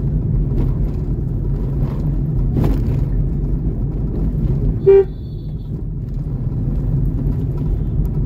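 Steady low rumble of a vehicle driving on a town road. A single short vehicle horn beep about five seconds in.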